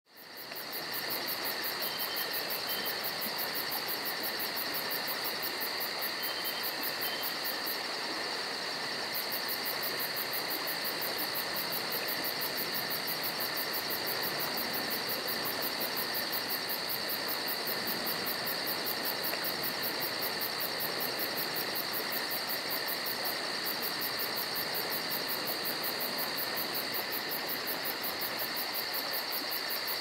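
A steady, high-pitched insect chorus, chirping with a fast even pulse.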